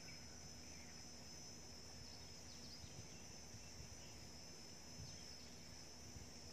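Faint outdoor ambience: insects droning steadily at a high pitch, with a few faint short chirps over a low rumble.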